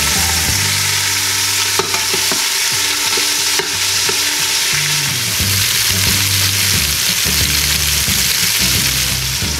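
Cubes of beef searing in oil in an Instant Pot's stainless steel inner pot on the sauté setting, sizzling steadily as they are stirred, with a couple of sharp clinks of the utensil against the pot.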